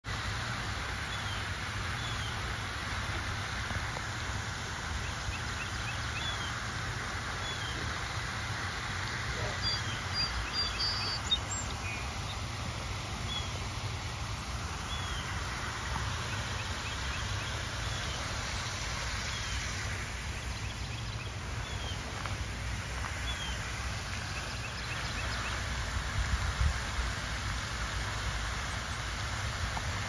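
Pond ambience: a steady rush of falling water from a fountain under a low rumble, with small birds giving short chirps every second or two and a brief sharper call about eleven seconds in.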